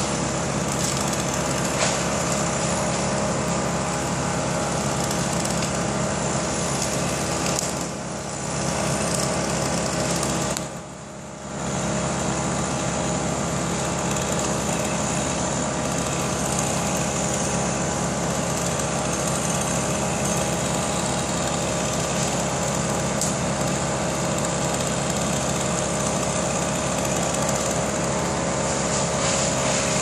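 A small petrol engine running steadily at a constant speed, dipping briefly twice near the middle.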